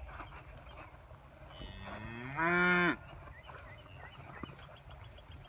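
A cow moos once: a single call of about a second and a half that rises in pitch, then holds and grows loudest before cutting off abruptly.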